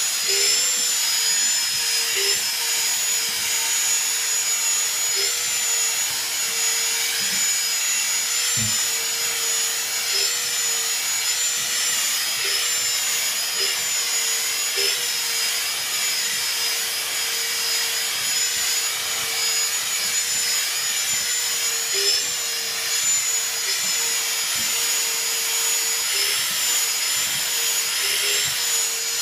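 Vacuum cleaner running steadily, a constant whine with high tones over a hiss.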